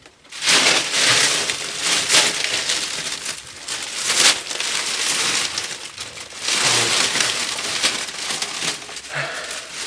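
Foley rustling and crunching of a bundle of dry grass props, played as a person falling into tall ilalang grass. It comes as one long dense rustle of about six seconds, a brief lull, then a second long burst.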